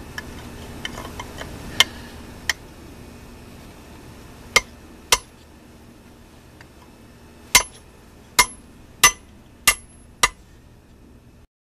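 Hand hammer striking steel in a blacksmith's shop: a few light clinks, then about nine sharp, ringing blows at uneven intervals. A low steady hum runs underneath, and the sound cuts off abruptly near the end.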